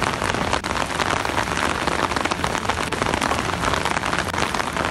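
Heavy rain falling steadily on a paved road, a dense, even patter of drops.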